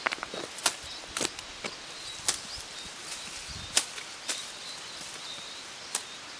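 About six sharp, irregular knocks or cracks, a second or so apart, over a steady outdoor hiss.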